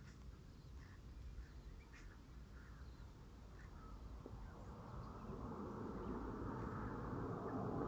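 Outdoor bush ambience: scattered short bird chirps over a low rumble, with a rush of noise building from about halfway through.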